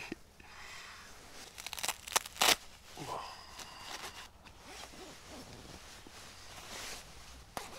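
Sleeping bag's synthetic shell fabric rustling and swishing as a person wriggles his arms and body out of it, with a few sharp crinkles and snaps a couple of seconds in and again near the end.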